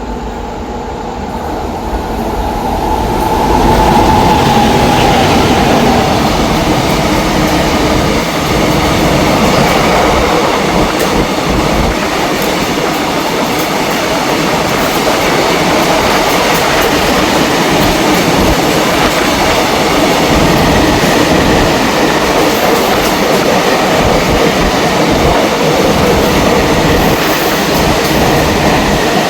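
A train passing close by: the loud, steady rolling noise of steel wheels on the rails, building over the first few seconds and then holding.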